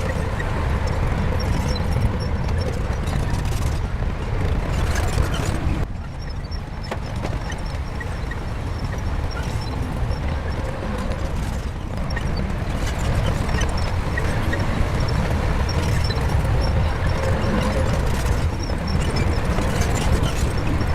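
Bulldozer diesel engine running steadily under load, with scattered clanks and knocks from the machine at work; the engine eases briefly about six seconds in.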